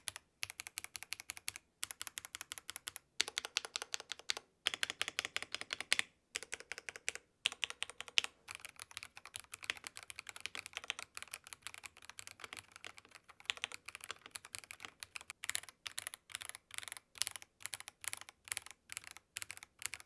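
Typing on a Royal Kludge H81 mechanical keyboard with pre-lubed Sky Cyan linear switches, a polycarbonate plate and plate and PCB dampening. Rapid keystrokes come in bursts with short pauses, turning to slower, evenly spaced presses at about three a second in the last few seconds.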